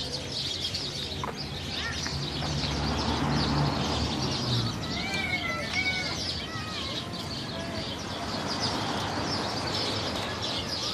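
Many small birds chirping continuously in the trees, over the murmur of people's voices. A low rumble swells and fades in the first half.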